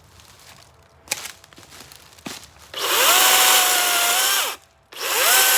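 Battery-powered electric chainsaw running in two spurts: a couple of light knocks, then about three seconds in the motor spins up with a quick rising whine, runs steady for under two seconds and winds down, then spins up again near the end.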